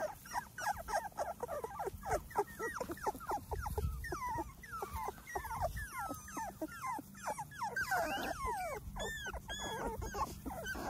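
A litter of young Labrador retriever puppies whimpering and squeaking: many short high cries, rising and falling and overlapping, several a second.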